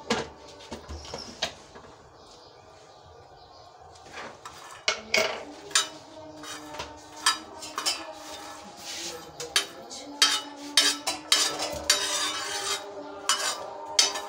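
Spatula scraping and clicking on a flat tawa griddle while stirring walnut pieces as they dry-roast. A few clicks at the start, then repeated scrapes and taps from about four seconds in.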